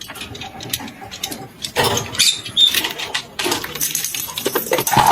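Parrot making scattered small clicks and scratching sounds, with a brief high whistle about two and a half seconds in and short chirps near the end.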